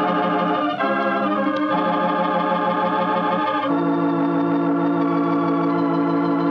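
Organ music bridge: slow, sustained chords that change a few times in the first four seconds, then one chord held.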